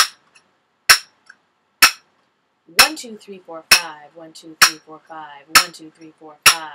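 Finger cymbals (zills) struck together in a steady beat: eight sharp, ringing clinks evenly spaced a little under a second apart, keeping the underlying rhythm.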